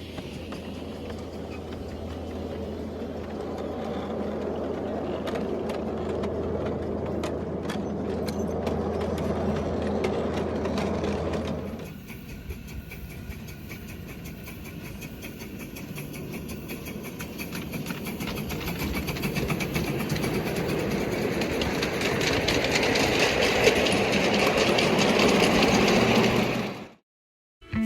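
Miniature ride-on railway train running on its track, with a steady low hum at first, then after a cut about twelve seconds in it grows louder as it comes closer, stopping abruptly just before the end.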